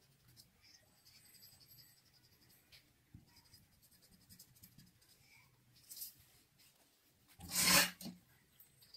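Faint pencil strokes scratching on drawing paper as the outlines of a technical drawing are gone over. About seven and a half seconds in, a short, loud burst of noise stands out.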